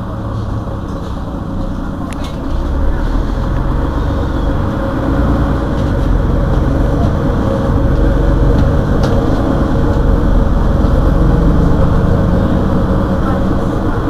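Mercedes-Benz Citaro Facelift city bus engine running while the bus stands still, heard from behind the bus as a steady low rumble. It grows louder about two and a half seconds in and again around eight seconds in.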